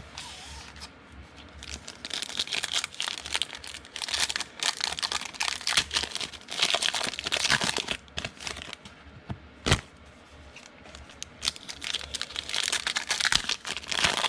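Foil and plastic wrappers of trading card packs crinkling and tearing as the packs are opened, in two spells of handling. A single sharp click comes a little before the ten-second mark.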